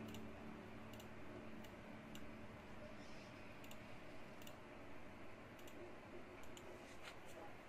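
Computer mouse clicking: about a dozen faint, irregularly spaced clicks over a steady hiss.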